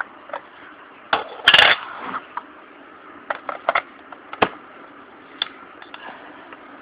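Clicks and clatter of a Canon EOS Rebel T3 body and its 18-55 mm kit lens being handled while the lens is mounted, with caps coming off and the lens seating on the mount. A louder clatter comes about one and a half seconds in, then scattered single clicks.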